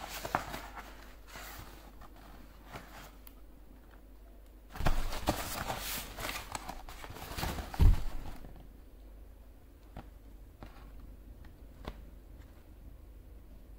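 A cardboard box being handled on a wooden table: light taps and rubs of fingers on the card, then a stretch of scraping and rustling as it is lifted and turned in the hands, with one sharp bump about eight seconds in.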